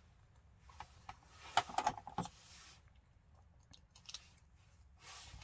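Faint light clicks and rustles of small electronic and plastic parts being handled on a work surface, with a short cluster of clicks about a second and a half in and a few softer ticks near the end.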